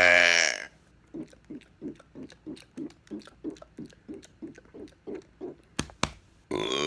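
A man's loud burp trails off in the first half-second. Then comes a run of short throaty gulps, about three a second, for some four seconds, followed by two sharp clicks. A long loud burp starts near the end.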